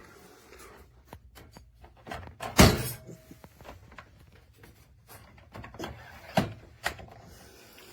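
Scattered knocks and clacks from the baby gate and its small pet door, the loudest about two and a half seconds in and two smaller ones near six and a half and seven seconds.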